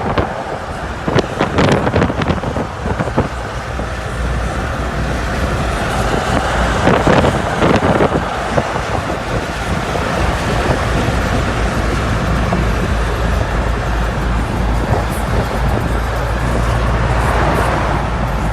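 Car on the move: a steady low rumble of engine and road noise with wind noise, and a few sharp knocks in the first few seconds and again around seven to eight seconds in.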